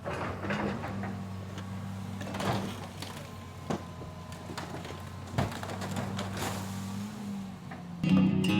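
A heavy machine's engine running with a steady low drone, with scattered sharp cracks and creaks of a car being wrecked. Music begins near the end.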